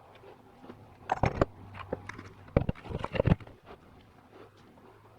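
Metal transmission parts knocking and clinking as they are handled during a teardown, in two short clusters of knocks: one about a second in and another about halfway through.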